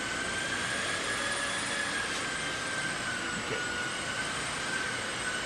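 A steady machine hum and hiss with a high, slightly wavering whine running underneath.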